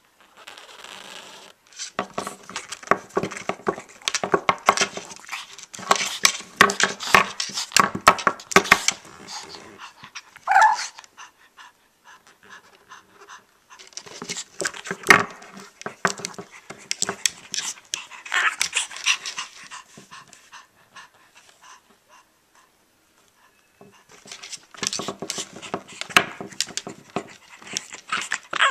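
Boston terrier panting and growling in rapid, rasping bursts, three long spells separated by short pauses, with a brief higher whine about ten seconds in.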